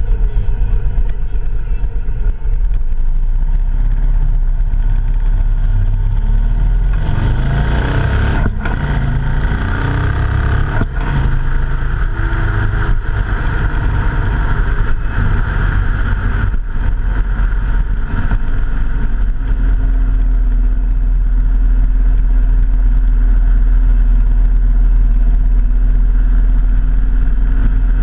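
Vehicle engine running during a ride over a heavy low rumble. The engine note shifts about a third of the way in, then settles into a steady hum that holds to the end.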